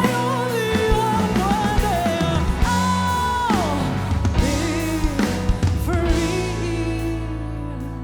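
Female singer with a backing band performing a pop-rock ballad, ending on a long held note as the music fades out.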